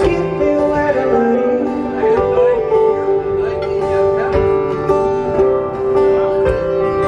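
Guitar music with held, ringing notes and a man singing along.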